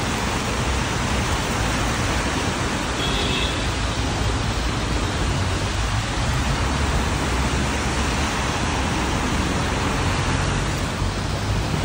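Steady hiss of falling rain mixed with the low rumble of city traffic on wet roads.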